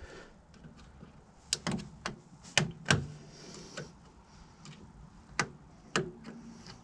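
Sharp clicks and light metallic knocks, about eight of them at uneven intervals, as a gloved hand works a butterfly spring clip onto the rubber steering rack boot (gaiter) of an inner track rod end.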